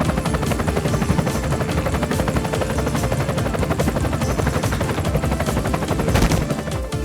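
Toy-helicopter rotor sound effect, a rapid even chopping, over background music.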